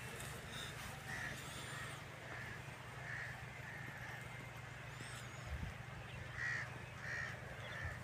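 Crows cawing: short calls repeated in two bouts, over a steady low background hum, with a few thin higher bird chirps in between.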